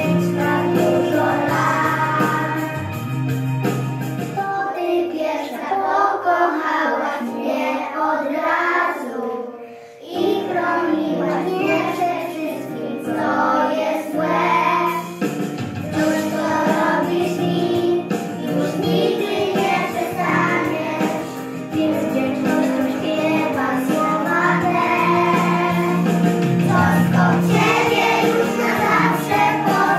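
A group of young children singing a song together over instrumental backing music, with a short break about ten seconds in.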